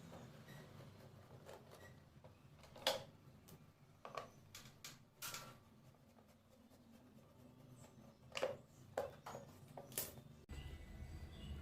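Faint scattered clicks and knocks of a screwdriver and hard plastic parts as the screws of a motorcycle's air filter box cover are undone and the cover is lifted off. The sharpest click comes about three seconds in, with a cluster near the end.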